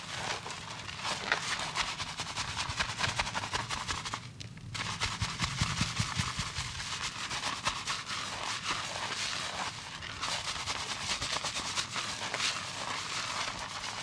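Fingers scrubbing shampoo lather through hair and scalp: fast, continuous crackling, with a brief pause about four seconds in.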